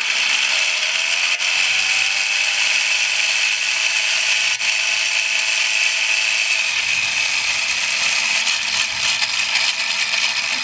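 Two Lego Power Functions XL motors drive a plastic gear train at full speed, giving a loud, steady, high-pitched whir and grinding of meshing gears. A faint tone rises in pitch over the first few seconds as the big wheel spins up.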